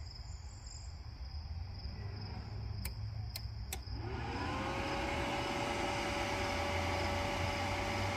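Three sharp clicks, then about four seconds in a cooling fan spins up with a rising whine and settles into a steady run with a hiss of air: the power station's AC output switched back on after an overload-protection trip, powering the flux-core welder back up.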